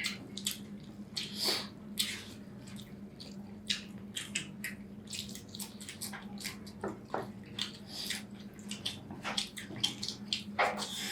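People eating curry and rice: irregular wet smacks, squelches and clicks of chewing and of food being handled, over a steady low hum.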